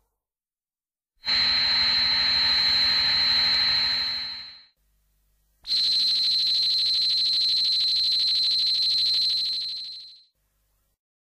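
Two long, high-pitched electronic whines of the monster Hedorah, sound effects from the 1971 Showa film. Each holds a steady whistle-like tone over a hiss and then fades out. The first starts about a second in, and the second, slightly longer, follows after a brief pause.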